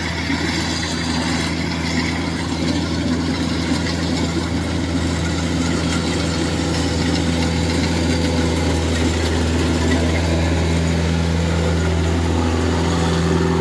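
Kubota DC105X combine harvester's diesel engine running steadily under load while cutting rice, its modified exhaust giving an even, deep drone that grows a little louder as it passes close.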